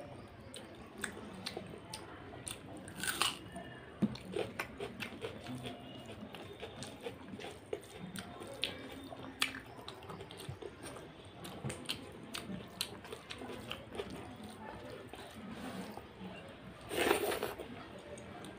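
Close-up chewing and mouth sounds of a person eating soft, saucy mutton fat curry with rice by hand: wet smacking and squishing with many small clicks. Two louder noisy bursts stand out, about three seconds in and near the end.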